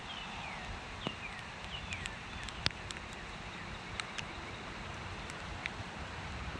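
Meadow ambience: a steady hiss with scattered sharp clicks, and a bird giving a few short downward-sliding chirps in the first two seconds.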